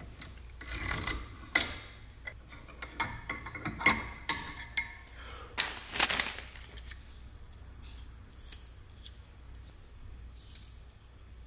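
Clicks, clinks and rubbing from hand-handling a brake-line flaring tool, a bench vise and a short copper brake line with stainless steel fittings, just after a bubble flare has been formed, with a brief plastic-bag rustle about six seconds in.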